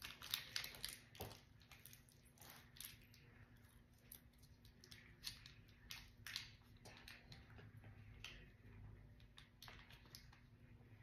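Faint crinkling and crackling of a small plastic packet being handled and pulled open by hand, in short scattered ticks.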